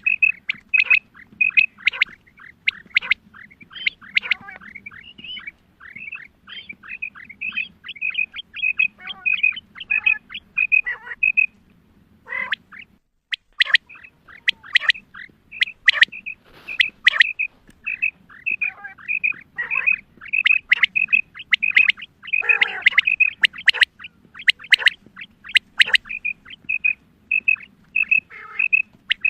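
Female common quail calling: quick, repeated short chirping notes at about two or three a second, the high-pitched hunting-lure call used to draw in males, pausing briefly about twelve seconds in.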